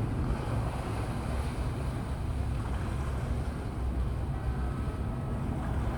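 Boat engines rumbling steadily, with wind buffeting the microphone.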